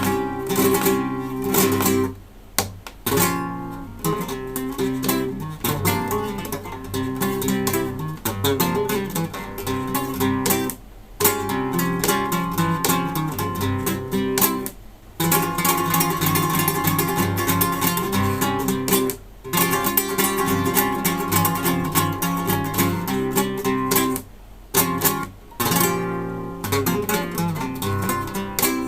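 Solo acoustic guitar played fingerstyle in a Latin, flamenco-like manner, with several brief, sudden breaks in the playing.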